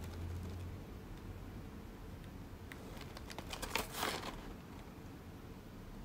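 Paper wrapping of a small flower bouquet crinkling as it is handled, with a short burst of rustling about four seconds in.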